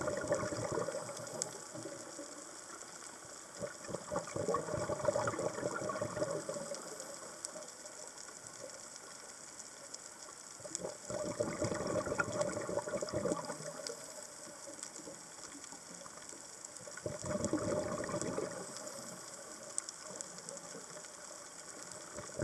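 Scuba diver breathing underwater through a regulator: bursts of exhaled bubbles about every six seconds, each lasting two to three seconds, over a faint steady crackle.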